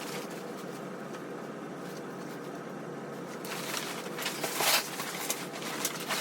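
Rustling and clicking from handling the folded waterfowl blind's fabric and metal frame. It starts about three and a half seconds in, over a steady faint hiss.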